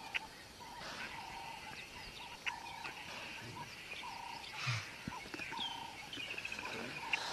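Wild birds calling in the background: a short mid-pitched note repeated about once a second, with occasional falling runs of high notes and a few sharp clicks. A single soft low thump comes about two-thirds of the way through.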